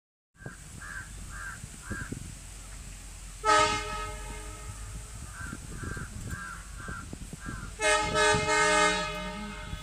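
Locomotive horn sounding two blasts: a short one about three and a half seconds in and a longer one near the end. Between them, short high notes repeat about twice a second, over low knocking handling noise.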